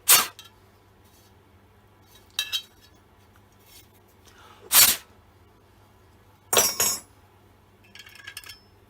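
Short bursts of metal scraping and clinking, four loud strokes followed by a few lighter clinks near the end, as the blocked oil holes of a chainsaw guide bar are scraped out.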